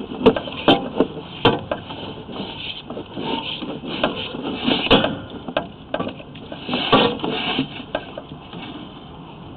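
Irregular knocks and clatter from handling a sewer inspection camera's push cable and reel, with a dozen or so sharp knocks bunched near the start, around the middle and again a couple of seconds later.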